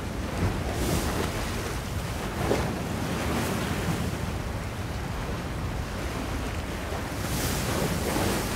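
Outdoor wind, buffeting the microphone with a steady low rumble, with swells of hiss about a second in, around two and a half seconds in and again near the end.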